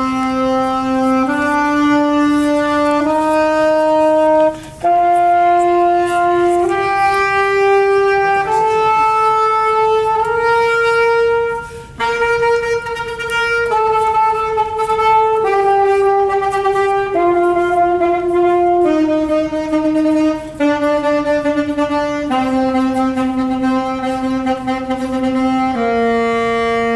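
Solo saxophone playing a slow scale, one held note after another stepping up about an octave and back down, a new note every one and a half to two seconds, with brief breaks for breath.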